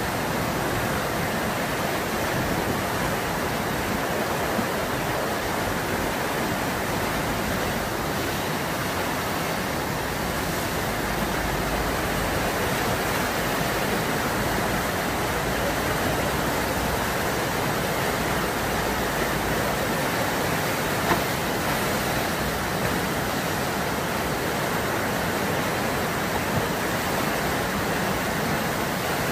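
Fast river water rushing steadily through a standing river wave, with continuous churning whitewater.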